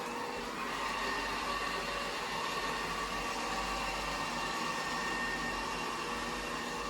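Samsung Bespoke Jet Bot robot vacuum running, a steady whirring hum of its suction motor with faint whining tones.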